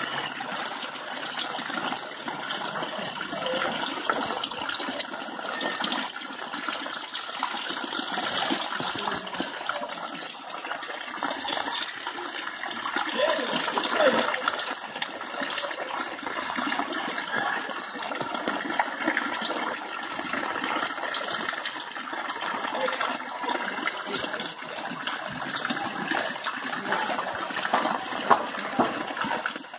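Steady gushing and splashing of water: a stream of rain runoff pouring from above into a flooded street's standing water.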